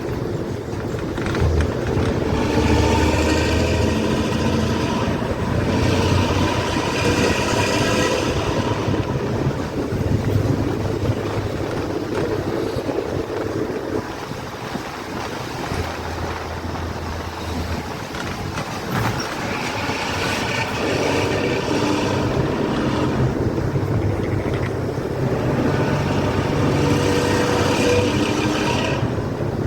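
Harapan Baru bus's diesel engine with a racing 'ngorok' exhaust, heard from the rear seat inside the cabin. It runs steadily under way and swells louder and more rasping in several spells, easing off in between.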